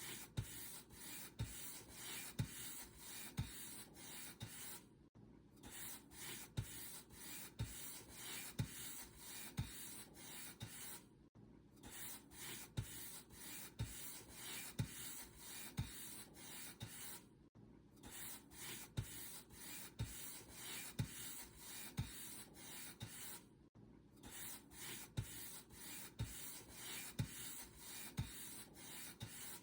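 Paint brush bristles rubbing in repeated strokes, about one a second, with a short break every six seconds or so.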